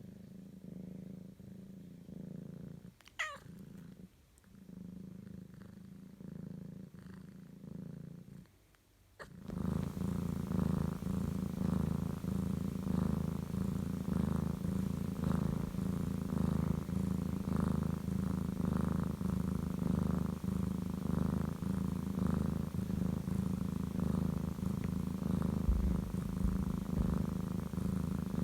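A drowsy British Shorthair cat purring: a steady, low, pulsing rumble, softer for the first several seconds and then clearly louder from about a third of the way in. About three seconds in, a brief thin high sound glides downward.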